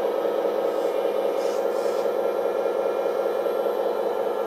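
Hydraulic pump of a 1/14 RC wheeled hydraulic excavator running with a steady hum while the boom and arm are worked, with faint brief hisses now and then.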